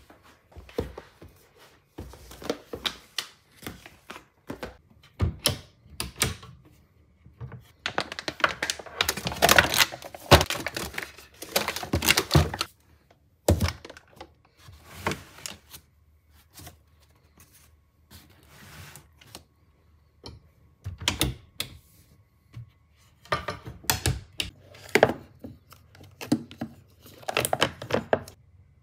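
Household supplies being put away on cabinet shelves: plastic refill pouches and cardboard boxes handled and set down in a string of irregular clacks, knocks and rustles, busiest from about eight to thirteen seconds in.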